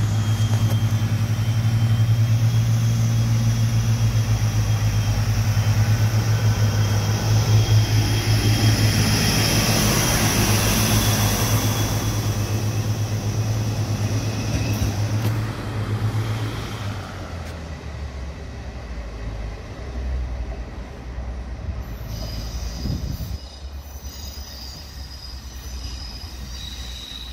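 HŽPP series 7121 diesel multiple unit passing close by, its diesel engine running with a steady low drone and its wheels squealing on the rails. The engine sound drops away about two-thirds of the way through, leaving fainter rail noise.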